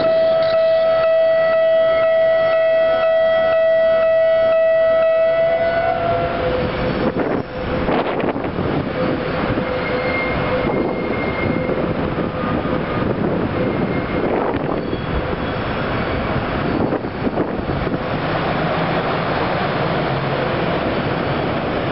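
Railway level-crossing warning alarm ringing at one steady pitch, stopping about six seconds in. After it, a small diesel switcher pushing freight wagons runs on as a steady rumble, with a faint brief squeal a few seconds later.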